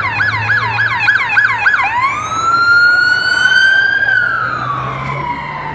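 Emergency vehicle siren, first cycling in a fast yelp of about four sweeps a second, then switching to a slow wail that rises for about two seconds and falls away near the end.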